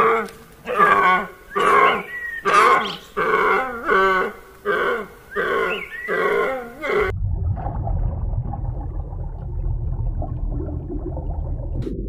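Deer calling: about ten short, pitched calls in quick succession. About seven seconds in they stop, and a low steady rumble follows.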